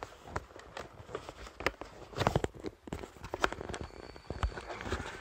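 Cardboard box being forced shut: irregular knocks, taps and scrapes of cardboard, with a cluster of louder knocks a little over two seconds in.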